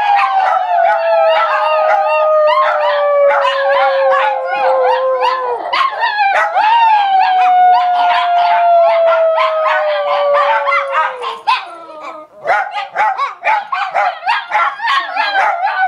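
Several dogs howling together: two long howls, each sliding slowly down in pitch over about five seconds, with yips and barks layered over them. In the last few seconds the howling gives way to a run of quick barks and yips.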